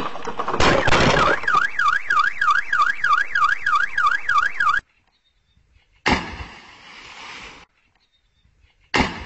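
A falling tree crashes onto a parked car, and the car's alarm sets off a wail sweeping up and down about three times a second. The wail cuts off suddenly. Later come two short bursts of noise that each fade away.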